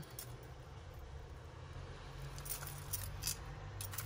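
Small metal costume-jewellery pieces clinking lightly as they are handled and sorted, a cluster of small clicks and jingles in the second half, over a faint steady hum.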